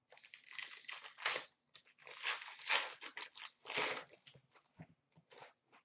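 Plastic wrapper of a hockey card pack being torn open and crinkled: several rustling bursts over about four seconds, then a few short crinkles near the end.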